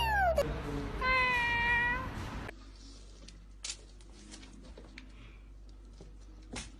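A cat meowing: one drawn-out meow lasting about a second, followed by a quiet stretch with a few faint clicks.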